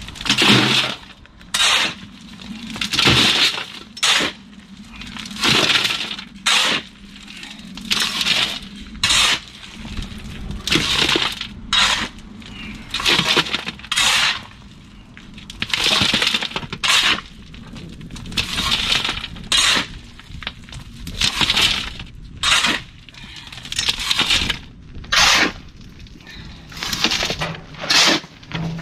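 Shovel scraping into and throwing loose aggregate, crushed stone hardcore or sand, in a steady working rhythm: a gritty scrape-and-rattle roughly every second or so.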